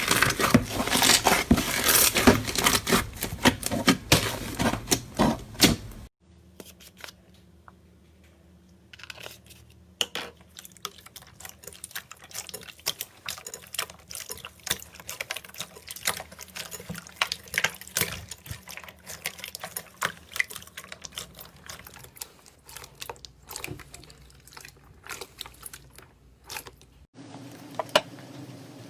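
Hands squeezing and kneading slime: a dense run of wet clicks and pops, loud for about six seconds, then after an abrupt cut fainter, scattered squelches over a low hum.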